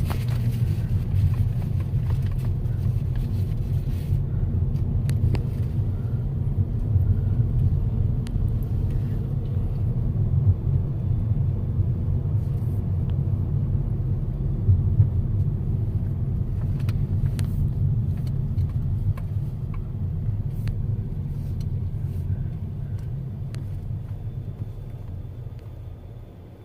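Car driving, heard from inside the cabin: a steady low rumble of engine and tyres on the road, with a few light clicks, that dies down near the end.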